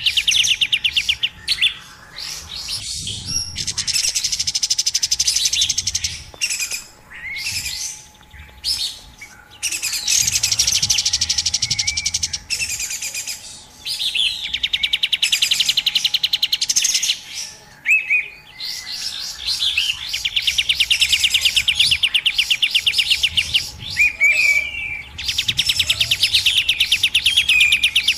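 Kapas tembak bird calls from a lure recording: fast, busy trills about two seconds long, repeated every few seconds with shorter chirps between them.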